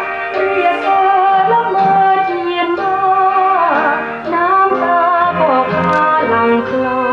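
Recorded music with singing, a wavering melody line over accompaniment, played through valve monoblock power amplifiers using 1929 Victor (RCA) type 245 triodes and a bare vintage cone loudspeaker with no cabinet.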